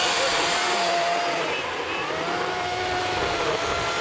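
EGO 18-inch cordless battery chainsaw cutting into a tree, its electric motor giving a steady whine that dips and recovers in pitch a few times as the chain bites into the wood.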